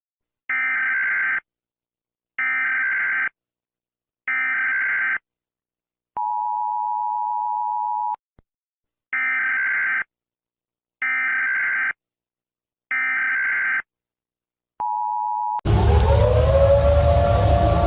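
Emergency Alert System-style data bursts: three buzzy digital bursts about a second long, then a two-second two-tone attention signal, then three more bursts and a short blip of the attention tone. Near the end a civil defense siren starts up, wailing loudly.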